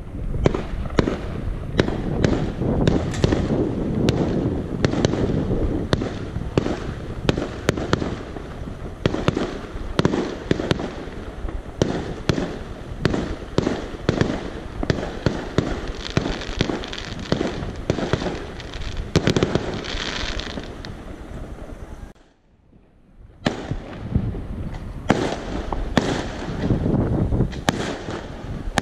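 New Year's fireworks going off in quick succession: many sharp bangs and crackles from shells bursting at once, over a steady rumble. The sound drops out suddenly for about a second two-thirds of the way through, then the bangs carry on.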